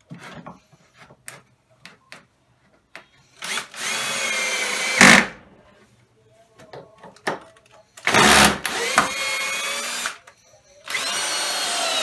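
Power drill running in three short bursts of one to two seconds, its pitch rising as the motor spins up and falling as it stops, with small knocks and clicks between the bursts.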